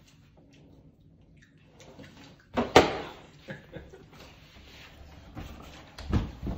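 A plastic water bottle, partly filled, lands hard on the table after a flip. It gives a sharp double thud with the water sloshing inside. Lighter knocks follow, and there is another loud thud near the end.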